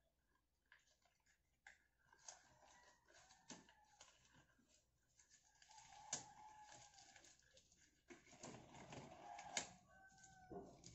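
Near silence with faint rustles and small snaps of latex gloves being pulled on and adjusted on the hands.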